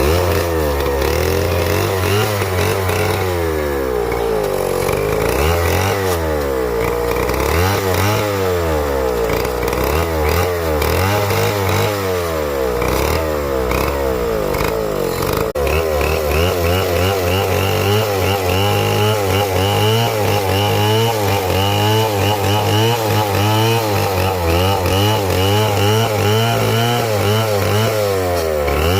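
Chainsaw running hard, its engine pitch rising and falling over and over as it is worked.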